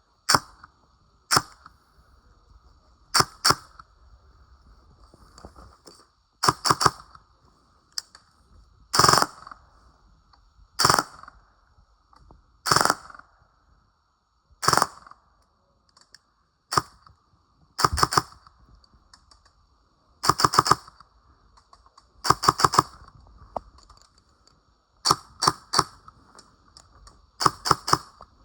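Airsoft PTW CQBR electric rifle firing: single sharp shots and short bursts of two to four, repeated every second or two.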